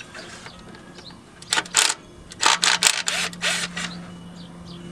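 Socket wrench ratcheting on timing-cover bolts: two short bursts of metallic clicking about a second and a half in, then a quicker run of them about a second later.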